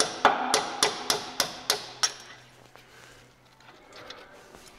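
Hand hammer blows on metal, about three or four a second with a short ring after each, driving at a stubborn, seized bolt on a Caterpillar 3406A diesel's turbocharger. About eight blows, then the hammering stops about two seconds in.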